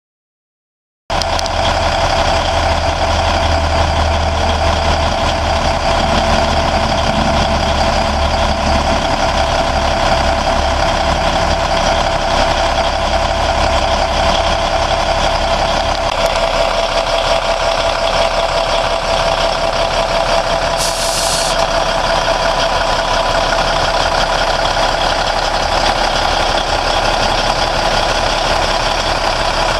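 Cummins N14 14-litre diesel in a 1996 Freightliner FLD120 semi truck idling steadily, cutting in abruptly about a second in. The deep low rumble thins about halfway through, and there is a brief high hiss a little later.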